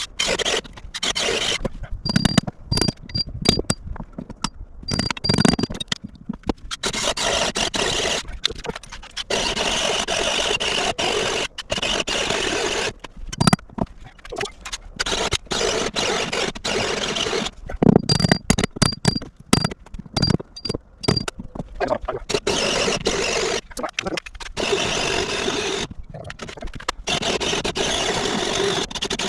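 Cordless drill running in long steady runs with stops between them, boring a hole for a ventilation pipe.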